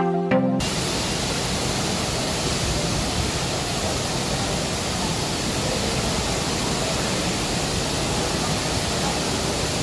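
Steady rain falling, an even hiss that does not change, coming in as a short piece of music cuts off about half a second in.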